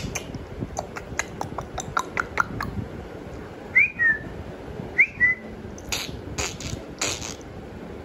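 A person making weird mouth noises to catch a dog's attention: a quick run of clicks, then two short whistled chirps, then a few short hisses.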